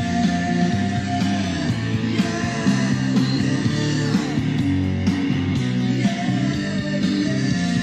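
Rock music with electric guitar and a steady band backing, in an instrumental stretch of the song.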